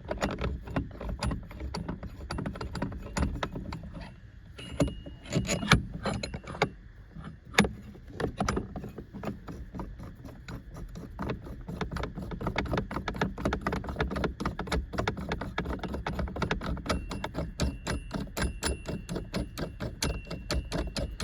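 Ratchet wrench clicking fast and repeatedly as the steering wheel puller's bolts are tightened, with a few louder metal knocks about five to eight seconds in.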